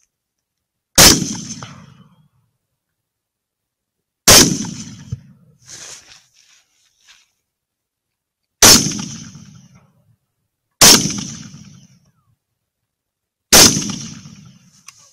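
Five rifle shots a few seconds apart, each a sharp crack whose report dies away over about a second.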